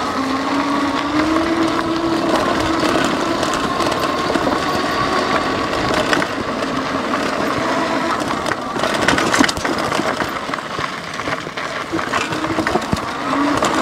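Lectric XP 3.0 e-bike riding over a rocky desert trail: the rear hub motor whines steadily under the tyres crunching on gravel. There are a few sharp knocks and rattles from bumps, around the middle.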